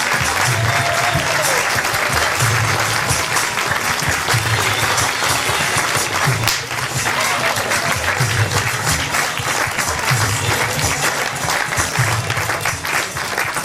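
Audience applauding, with music underneath carrying a low beat that repeats about once a second.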